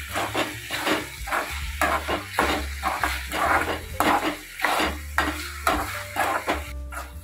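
Metal spoon scraping and stirring onions and tomatoes in a metal kadai, about two strokes a second, with the sizzle of the mixture sautéing in oil beneath.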